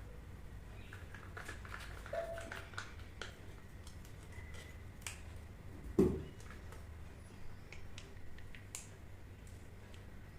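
Scattered small clicks and taps of hands handling hair-colour pouches, a brush and a mixing bowl, with one louder knock about six seconds in.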